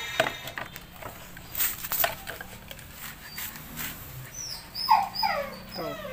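5-month-old Belgian Malinois whining in several short, falling whimpers from about five seconds in, after a few brief clicks earlier.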